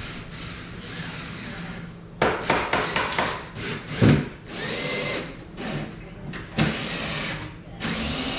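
Hand-tool work on a granite backsplash: a run of sharp knocks and clatter, the loudest about four seconds in, with short steady stretches of noise between them.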